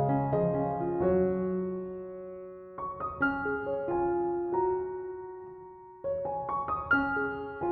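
Soft background piano music: gentle chords and broken-chord notes struck in groups about every three seconds, each group fading away before the next.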